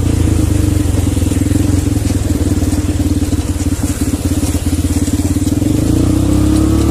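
ATV (quad bike) engines running at low speed with an even, rapid firing pulse, the pitch rising near the end as the engine is given more throttle.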